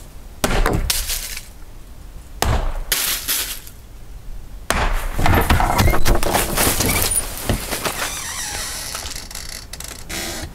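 Stones thrown against a house's wooden siding and glass storm door: two separate hard knocks about two seconds apart, then a longer run of clattering hits.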